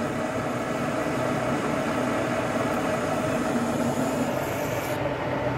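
Metal lathe running with the workpiece spinning in the chuck while a grooving tool is fed in by the cross slide to cut a groove down to 30 mm diameter: a steady mechanical hum. A thin high hiss stops about five seconds in.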